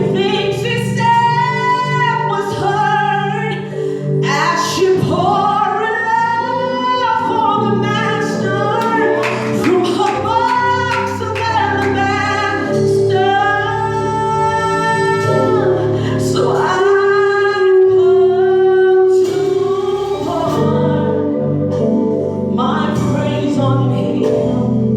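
Gospel music: a voice singing long, wavering held notes over a steady sustained instrumental accompaniment.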